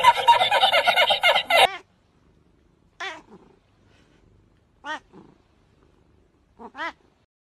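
A man laughing loudly for the first second and a half, then a cat calling three times, about two seconds apart, each call a short wavering meow.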